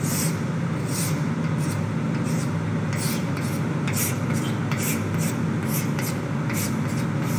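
Chalk scratching on a blackboard as short straight lines are drawn, a quick stroke about every half second, over a steady low hum.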